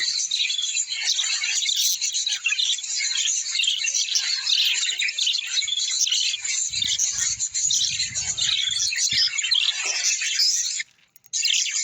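A flock of small birds chirping and chattering densely and without a break, with many calls overlapping. The chatter cuts out for a moment about eleven seconds in, then resumes.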